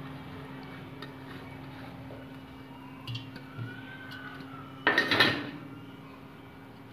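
Steel kitchenware being handled on a table: a small steel plate scraping and clattering once, briefly and loudly, about five seconds in, with a few faint clinks before it. A steady low hum runs underneath.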